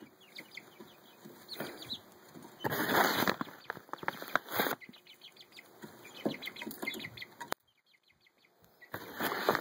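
Pet chickens moving about, with flurries of wing flapping about three seconds in and again near the end, among quick sharp taps.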